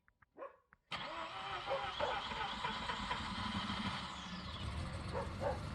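A steady mechanical running noise, like an engine running, cutting in suddenly about a second in after a few faint clicks.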